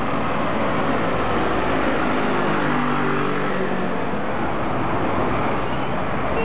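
Steady road traffic noise, with a motor vehicle passing by about midway, its engine note falling in pitch as it goes past.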